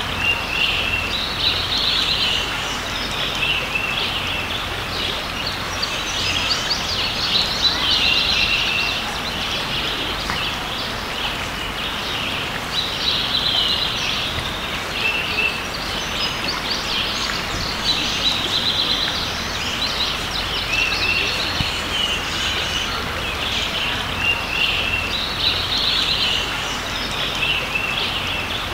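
Birds singing and chirping in bursts every few seconds over the steady rush of a creek.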